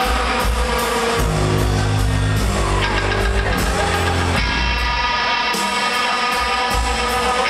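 Live rock band playing: electric guitar, bass and drum kit.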